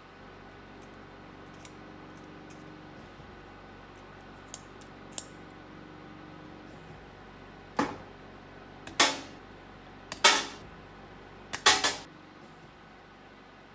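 Metal clinking on a jeweller's workbench as silver pieces or small tools are handled: a few faint ticks, then about five sharp, briefly ringing metallic knocks in the second half, over a low steady hum.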